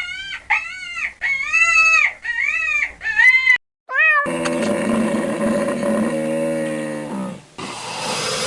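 Farm animal calls cut one after another: about six short, high-pitched cries in quick succession, then a long, low call lasting about three seconds, then a harsher, noisier call near the end.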